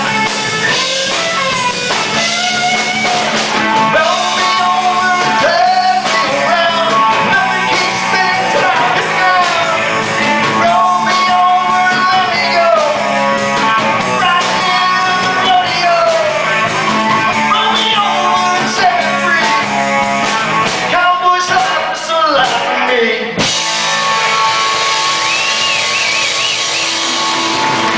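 Rock band playing live: electric guitar, bass guitar and drum kit, with a lead line that bends up and down in pitch.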